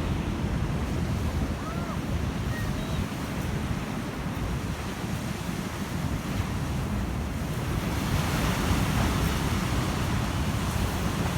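Big storm-driven sea waves breaking and washing on the beach, with wind buffeting the microphone. The surf swells louder about eight seconds in.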